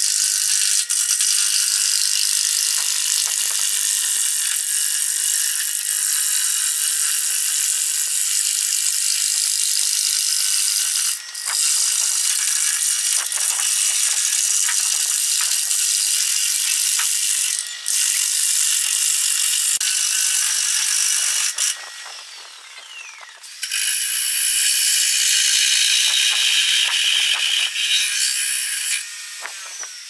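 Turning tool cutting a spinning cedar log blank on a wood lathe, roughing it round: a loud, steady hiss of the cut. It breaks off briefly about a third of the way in and again just past halfway, as the tool lifts off, and stops for a couple of seconds about three-quarters through before cutting resumes.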